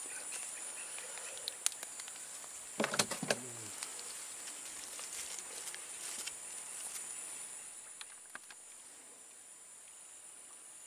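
Steady, high-pitched chorus of swamp insects, easing off a little in the last few seconds. There is a brief voice sound about three seconds in and a few small clicks and rustles of handling.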